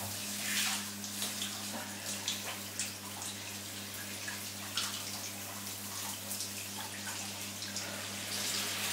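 Shower running: a steady hiss of spraying water with small irregular splashes, over a constant low hum.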